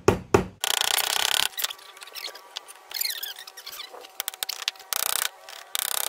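A claw hammer knocking a nail into a thin plywood birdhouse piece, a few quick blows at the start, followed by several bursts of rough rubbing and scraping of wooden pieces with small clicks and knocks.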